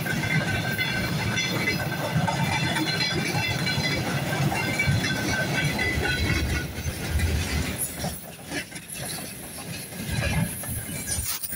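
Freight train wagons rolling past: steel wheels rumbling and clattering on the rails, with high thin squealing tones over it in the first half. The noise eases for a few seconds about two-thirds through, then picks up again.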